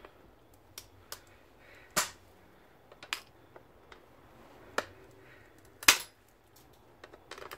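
Clear acrylic (plexiglass) sheet being snapped into small pieces with pliers: sharp cracks about two, three and six seconds in, the last the loudest, with fainter clicks between.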